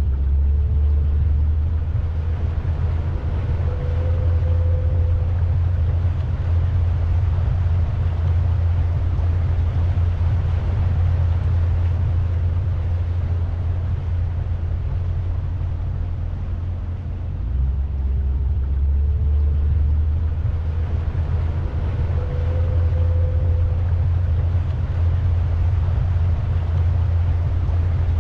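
Pontoon boat under way: a steady low rumble from its motor, with wind and water noise over it.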